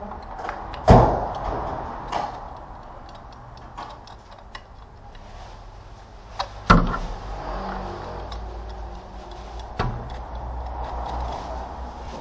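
Hand tools working on a car engine: sharp metal knocks and clicks, the loudest about a second in and others near two, seven and ten seconds, with light ticking between.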